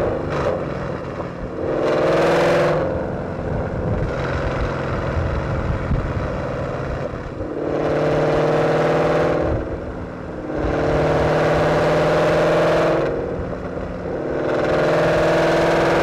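2012 Ford Mustang GT's 5.0 Coyote V8 through long-tube headers, an off-road X-pipe, a resonator delete and a Borla ATAK axle-back, accelerating in several loud pulls that rise in pitch, with short, rougher, quieter dips between them.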